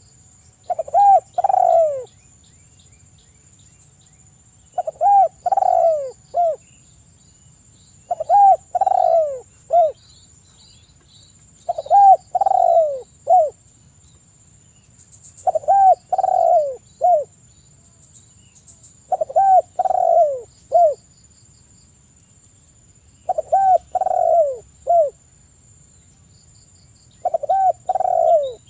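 Spotted dove cooing: a phrase of three or four falling coos, the middle ones longest, repeated about every three and a half seconds, eight times.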